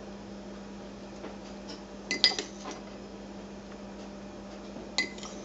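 A metal spoon clinking against a dish and spice jars, a quick cluster of clinks about two seconds in and one more near the end, over a steady low hum.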